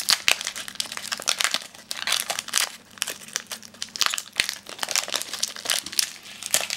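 Foil Pokémon card booster pack crinkling in the hands as it is worked open, with irregular crackles throughout.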